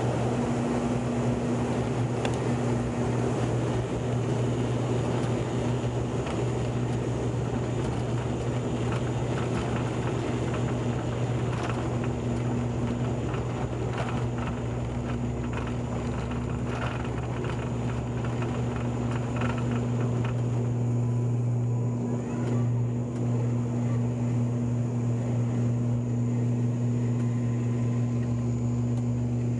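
Airliner cabin during the takeoff roll: the engines run at full power with a steady low drone under a loud rushing noise, and the runway rumble rattles the cabin. About two-thirds of the way through the rattle and hiss ease as the aircraft lifts off and climbs.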